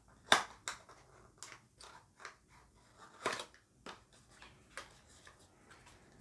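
Packaging of a cosmetics box being opened and handled by hand: irregular crinkling, rustling and sharp little snaps, the loudest about a third of a second in and another just after three seconds.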